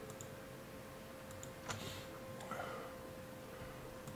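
A few faint computer mouse clicks over a steady low hum, the loudest about a second and a half in.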